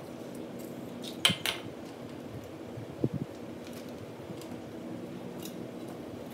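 Metal clinks of a compression gauge's hose and fitting being handled at the spark-plug holes of a Continental flathead four-cylinder: two sharp clinks about a second in and a softer knock around three seconds. A steady background hum runs underneath.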